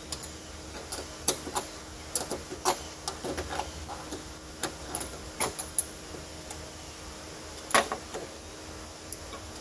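Irregular clicks, taps and small metallic knocks of hand tools and hardware being worked while the bottom mount of an old hatch gas strut is taken off, with one louder knock near the end.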